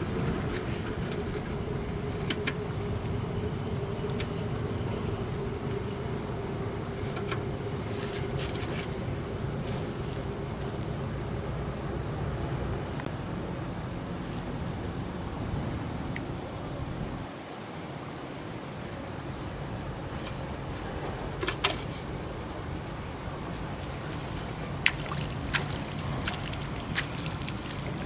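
Night insects, crickets, trilling steadily in a high, even pulse over a low steady rumble, with a few sharp clicks near the end.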